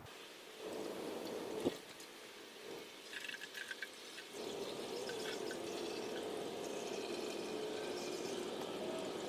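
Motor oil being poured from a bottle into the oil filler opening of a Jeep 4.0L engine: a short pour ending in a click, a few light clicks, then a steady pour from a bit over four seconds in.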